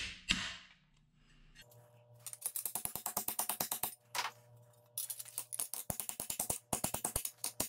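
Small hammer tapping a thin steel strip over an anvil horn to curve it into a pommel band: two runs of rapid, light metallic strikes, several a second, with a faint steady ringing under them.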